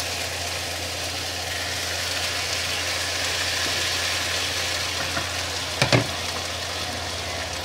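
Chicken pieces sizzling in a hot frying pan as the soy-and-lemon marinade is poured in, over a steady low hum. About six seconds in come two sharp knocks as the plastic bowl is set down on a plate.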